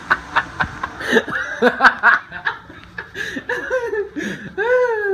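A person laughing in quick bursts, a few each second. Near the end a dog whines in a long wavering tone, wanting to be let downstairs.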